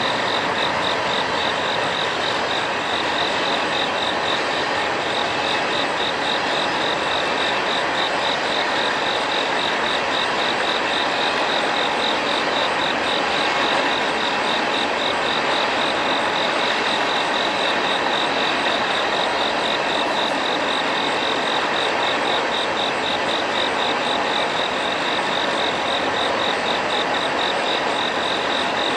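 Night chorus of calling insects: a steady high, evenly pulsing trill over a dense, even hiss of many callers.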